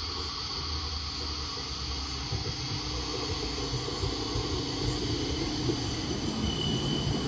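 CAF Urbos 3 light rail tram arriving and running past close by: a steady low hum and rumble of the tram on its rails, growing louder as it nears, with a brief high tone near the end.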